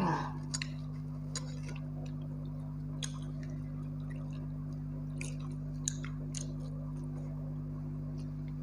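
Fingers mixing pakhal, cooked rice soaked in water, in a glass bowl: soft wet squishing with a few sharp clicks, over a steady low hum.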